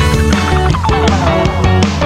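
Background music: an upbeat track led by guitar over a steady bass line.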